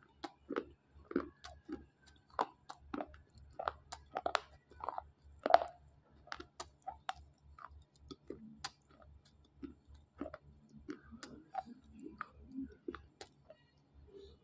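Slate pencils, dry, being chewed close to the microphone: a run of sharp crunches and clicks, about two a second, growing fainter in the second half.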